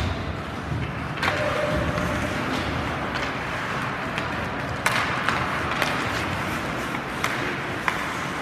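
Ice hockey rink play: skates scraping the ice over a steady arena hiss, with several sharp clacks of sticks striking the puck at uneven times.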